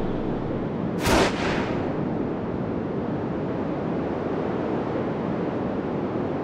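Film sound effects under the end titles: a steady rushing rumble, with one short, sharp hit about a second in.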